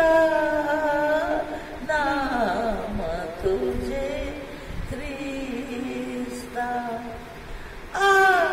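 An elderly woman singing a Marathi hymn solo, holding long notes that slide between pitches. Her voice is softer through the middle and louder again near the end.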